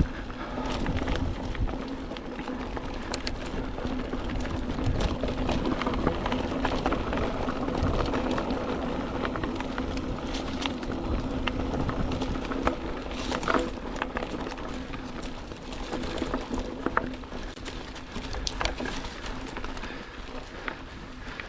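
Mountain bike riding along a dirt single-track trail: continuous tyre rumble and rattling from the bike, with scattered sharp knocks from bumps and a steady hum underneath.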